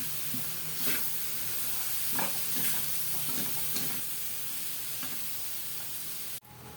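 Ground pork and hot dogs sizzling in oil in a pan while being stirred, with a few scrapes against the pan. The sound cuts off suddenly near the end.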